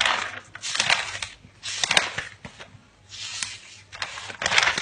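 Paper pages being turned by hand: five quick rustles of the sheets, each about half a second long.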